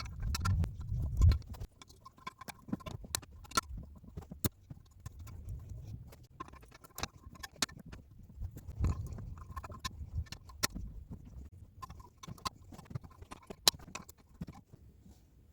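Rocker arms being fitted by hand onto a VAZ classic cylinder head: scattered, irregular sharp metal clicks and clinks, with a few low bumps of parts being handled.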